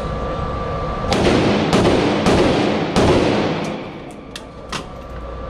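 Firearm gunshots in rapid succession: four loud shots about half a second apart, from about a second in to three seconds in, each followed by a ringing tail, then a quieter fifth shot near the end. This is a timed drill fired for center-mass hits on a target.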